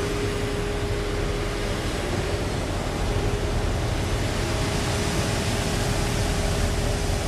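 Diesel engine and machinery of a Cat tracked asphalt paver running steadily: a constant, even mechanical noise with a low hum.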